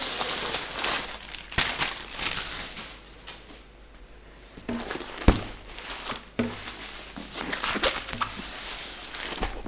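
Clear plastic sleeve crinkling as it is slid off a rolled diamond-painting canvas, then paper and the canvas's plastic cover rustling as the roll is unrolled by hand. A sharp knock about five seconds in is the loudest sound.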